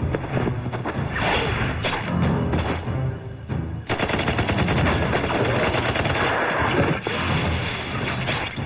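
Gunfire in a firefight: a dense, rapid run of shots sets in about four seconds in, over dramatic background music.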